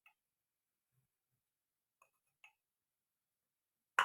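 Mostly quiet, with a few faint light clicks and clinks of kitchen utensils, two of them about two seconds in, and a sharper click at the very end.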